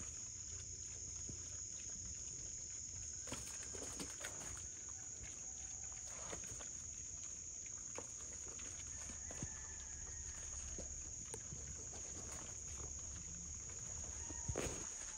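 Feral hogs rooting through swamp brush: scattered snaps of twigs and rustling leaf litter, with a sharper knock near the end, over a steady high-pitched insect drone.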